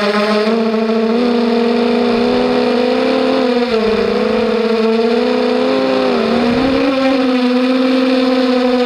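Mini 250-size FPV racing quadcopter's brushless motors and propellers running at speed, a loud steady whine whose pitch dips briefly with throttle changes, about three and a half and six seconds in.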